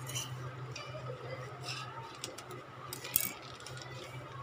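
Light metallic clinks and knocks from a steel kitchen spoon and pots being handled while a plant is repotted. They come scattered, the loudest about three seconds in, over a steady low hum.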